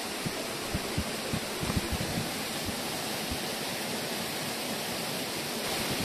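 Steady rushing of water from a rocky mountain stream and waterfall, with a few soft low knocks in the first few seconds.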